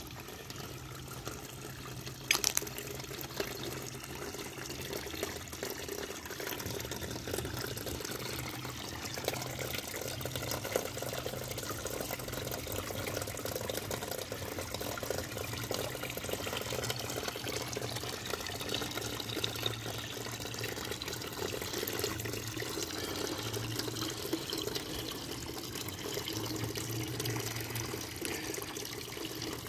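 Steady splashing and trickling of a garden water feature: water pouring from a red hand-pump spout into a galvanized tub and spilling over small waterfalls into a lily pond. A sharp click sounds once about two seconds in.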